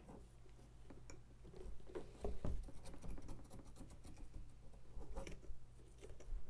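Pumpkin carving: a knife or carving tool scratching and cutting into a pumpkin in short scrapes and small clicks, the strongest strokes a little over two seconds in.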